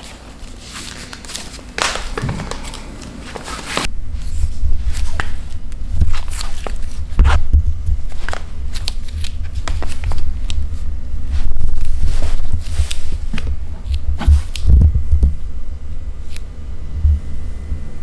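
Footsteps in rubber-soled leather sandals on a parquet wood floor, with low rumbling handling noise from the hand-held camera; the first few seconds hold only scattered rustles and clicks as the sandals are put on.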